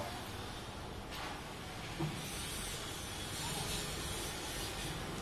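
Steady, faint background noise, a low rumble with a hiss over it, with a single light knock about two seconds in.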